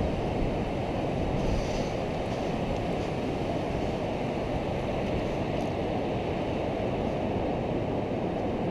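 Steady wind rumbling on the microphone over surf washing onto the beach.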